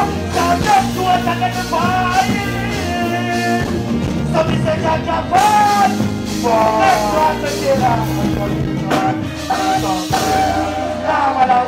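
Live band music with a male vocalist singing a wavering, melodic line into a microphone through a loud stage sound system.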